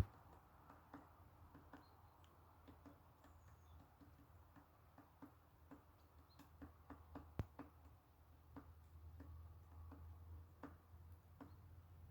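Great spotted woodpecker pecking at bark while foraging for bark beetles: faint, irregular taps about one to three a second, with one sharper knock about seven seconds in. This is feeding work, not a fast drumming roll.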